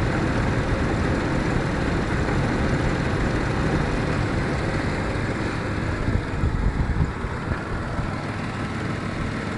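1996 Jeep Grand Cherokee's 4.0-litre inline-six running at idle, an engine that the owner says misfires at random. The sound dips a little and turns more uneven about six seconds in.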